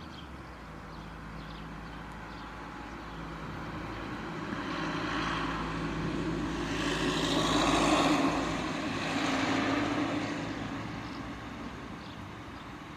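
A vehicle passing by, a broad rushing noise over a low hum that swells over several seconds, is loudest about eight seconds in, then fades away.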